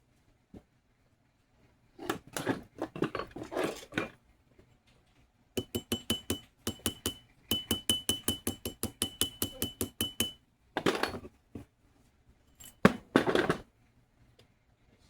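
Small metal tools clinking and scraping on a bench. In the middle comes a quick even run of light metal taps, about five a second, each with a thin ringing tone.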